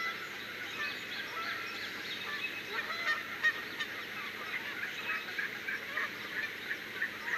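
A dense chorus of many birds calling at once: short, overlapping calls that go on without a break, with a few single calls standing out a little louder around the middle.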